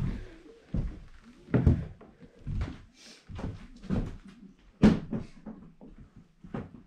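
Footsteps on old wooden floorboards, hollow knocks about one step a second, as someone walks off a plank porch and into a small room of a log farmhouse.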